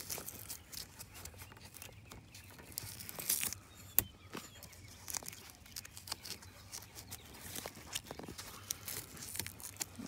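Fingers handling foam-wrapped wiring connectors behind a car's steering column trim: scattered scratchy rustling and light plastic clicks, with one sharp click about four seconds in.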